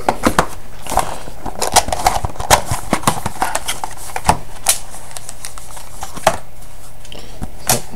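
Cardboard trading-card box and its contents being handled: a quick run of small clicks, taps and light rustles, thicker in the first half and sparser later, with a sharp tap a little before the end.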